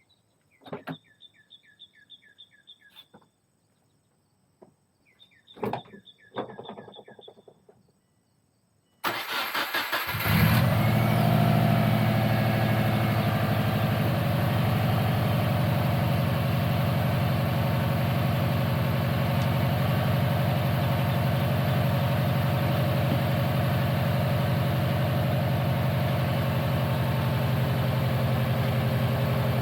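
Two runs of short repeating electronic chime tones, then the Subaru Forester's flat-four engine cranks briefly and catches about ten seconds in, settling into a steady idle. This start comes right after new terminals were crimped onto a sensor connector to cure a long-running no-start fault.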